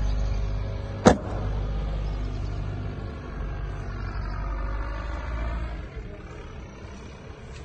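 An engine running steadily with a low hum. A single sharp knock about a second in is the loudest sound, and the hum drops away near the end.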